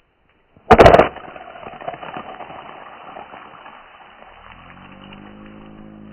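A thrown shard of ice smacks onto thin lake ice, shatters, and the fragments skitter and slide across the frozen surface, the noise fading away over about three seconds. In the last couple of seconds a low droning tone sets in.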